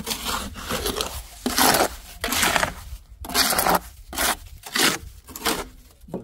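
A series of about eight rough scraping, crunching strokes, each under a second long, coming irregularly.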